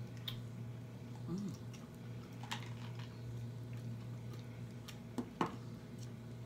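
Close-up eating sounds: a few scattered sharp mouth clicks and smacks, the loudest pair about five seconds in, over a steady low hum.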